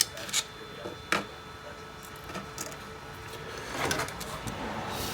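Sharp metallic clicks and handling noise from hand work fastening titanium heat wrap on an ATV exhaust header: a few single clicks in the first second or so, then a cluster of scraping clicks about four seconds in.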